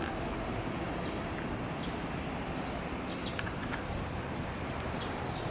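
Steady outdoor background noise, like distant city traffic, with a few faint short ticks.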